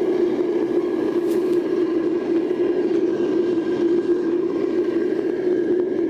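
Gas burner of a homemade crucible furnace running with a steady roar, fed from a propane tank and held at a low fire to cure the new refractory lining on its first firing.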